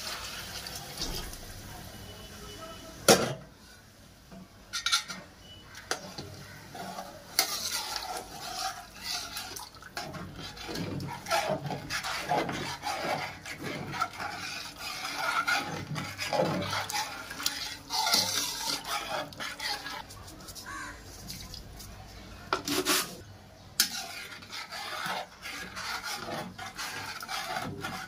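Water poured from a small aluminium pot into a large aluminium cooking pot of chicken and potatoes, then a steel ladle stirring and scraping against the pot's sides with repeated clinks and knocks. A sharp clank of metal on metal about three seconds in is the loudest sound.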